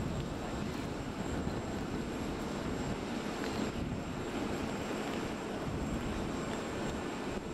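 Steady aircraft engine noise: a constant low rumble with a faint steady high whine.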